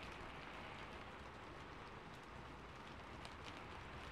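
Steady rainfall, a soft even hiss of many drops, with a few closer, sharper drips a little past three seconds in.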